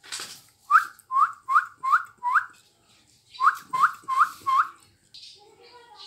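A run of short squeaky chirps, each starting with a click: five in quick succession, then four more after a pause of about a second.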